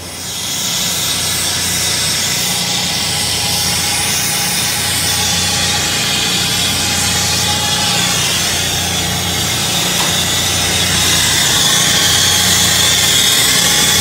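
Machinery running steadily on a rooftop: a constant low mechanical hum under a loud broad hiss, which comes up sharply about half a second in and then holds.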